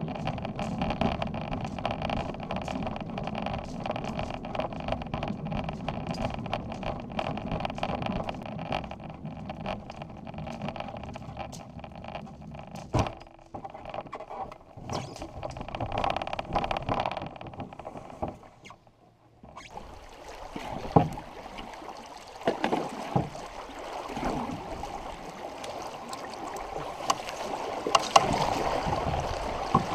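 Handling noise of a loaded canoe: a steady rumble with many small clicks, then after a short break, a hiss of water with several sharp knocks on the hull.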